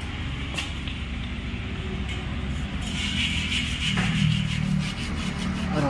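An abrasive block scrubbed back and forth along the bead seat of a Bajaj CT100's alloy motorcycle rim, cleaning it so a tubeless tyre will seal. The strokes come quick and even, getting louder about halfway through.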